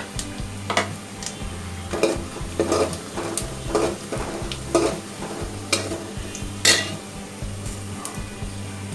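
A metal ladle scrapes and knocks against the sides of an aluminium pot, stirring sliced onions that sizzle as they fry in oil on their way to browning. The strokes come about once a second, and one louder knock falls near the end.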